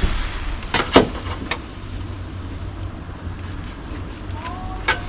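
Handling knocks from sheet metal and tools: a few sharp knocks, the loudest about a second in, and another near the end after a short squeak, over a steady low hum.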